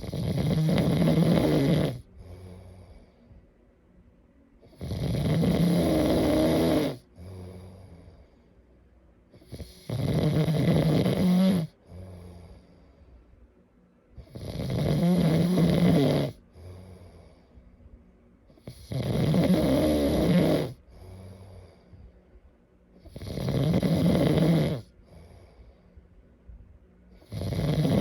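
A sleeping person snoring: a loud snore about every four to five seconds, each lasting about two seconds, seven in all, with quiet breaths between.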